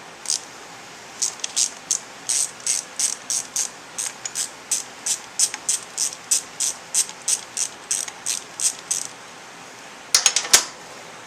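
Hand ratchet clicking in short, even strokes, about three a second, as the screws of an engine cover are backed out; near the end a brief loud metallic clatter.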